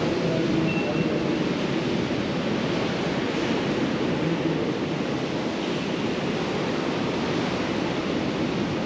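Hurricane-force wind blowing against the building, heard from indoors as a steady rush of noise.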